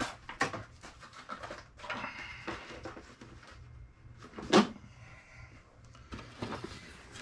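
Hands handling a cardboard collectible box and its contents on a tabletop: scattered light clicks and rubs, with one sharp knock about four and a half seconds in.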